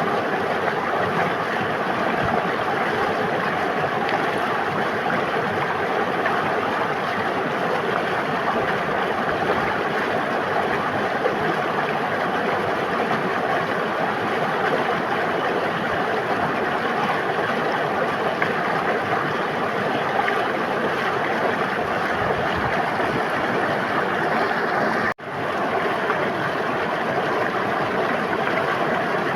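River water flowing and burbling steadily over rocks. It cuts out for an instant near the end and resumes at once.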